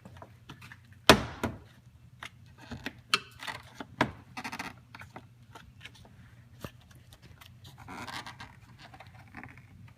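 Sharp plastic clicks and knocks, a handful of them and the loudest about a second in, with scraping and handling between: BMW bumper clamps being pushed and clicked into their mounting spots.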